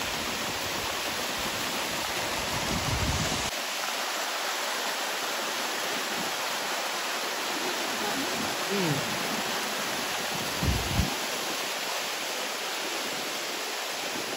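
Waterfall rushing steadily as a thin fall of water pours down a narrow rock chute, with a low rumble under it for the first few seconds.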